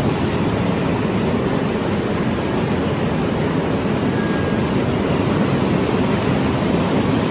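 Many fancy-yarn production machines running together, making a loud, steady noise with no breaks or distinct beats.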